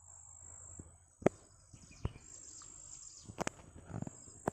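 Outdoor hillside ambience: a steady high-pitched insect drone with faint bird chirps, broken by a few sharp clicks, the loudest about a second in.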